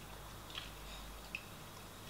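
A man chewing food with his mouth closed: faint, wet mouth clicks, two of them plainer, about half a second and just over a second in, over a low steady hum.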